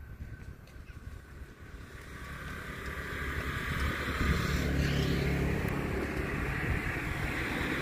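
An engine drawing nearer and growing steadily louder: a low, even hum with a hiss above it.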